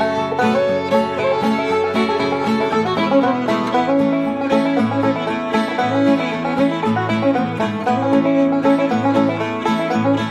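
Old-time string band playing an up-tempo fiddle tune: fiddle and banjo carry the melody over a third plucked string instrument keeping time.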